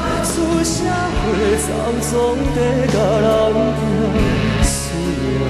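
A man singing a Taiwanese Hokkien ballad with wide vibrato, backed by a band with drum hits.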